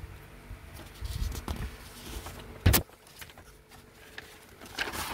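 Handling noise from a hand-held camera being moved and repositioned: low rumbles and rustles, and one sharp knock about two and a half seconds in.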